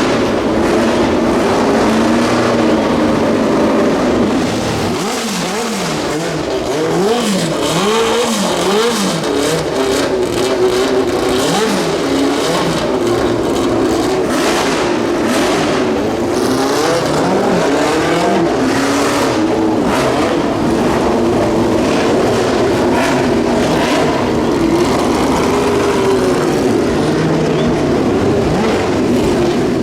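Historic Group C race cars running on track, engines at high revs, their pitch rising and falling again and again as they accelerate, shift and go by.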